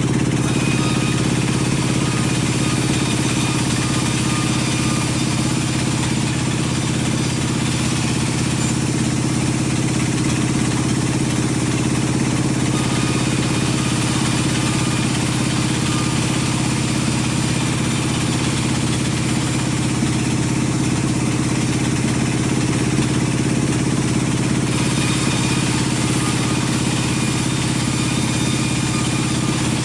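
Sawmill machinery running with a steady, loud engine-like hum throughout, and only slight changes in its higher sound about 12 and 25 seconds in.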